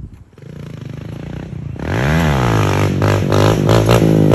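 Dirt bike engine revving: it rises and falls sharply about two seconds in, then is held loud at high revs as the bike is pulled into a wheelie.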